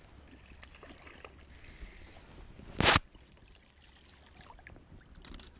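A hooked walleye being reeled in at the surface, with light water sounds and then one short, loud splash about three seconds in.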